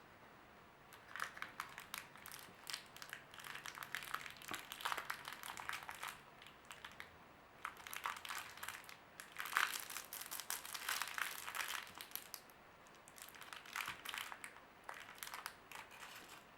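Crinkly wrapper of a chocolate surprise egg being unwrapped by hand, crackling in three spells of crumpling.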